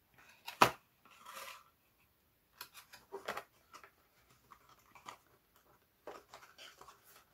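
Small cardboard gift box being handled and opened by hand. There is a sharp click about half a second in, a brief rustle of card, then scattered light clicks and scrapes of cardboard.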